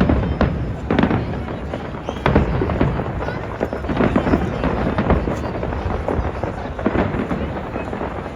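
Fireworks display exploding: a dense run of bangs and deep booms about once a second over a continuous low rumble.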